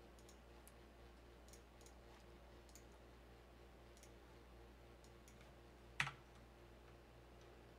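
Near silence, with faint computer mouse clicks scattered through and one sharper keyboard key press about six seconds in, as a value is typed into a CAD program.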